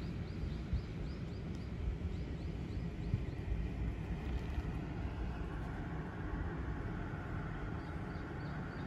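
Hakone Tozan cable car's haul cable running over the track pulleys as the car climbs toward the station: a steady low rumble, with a faint whine building from about halfway. A run of quick high chirps sounds in the first second or so and again near the end.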